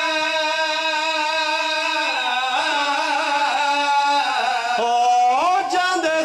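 A man's voice, amplified through a microphone, singing a vain (Punjabi mourning lament): one long held note for about two seconds, then wavering turns of pitch that climb near the end.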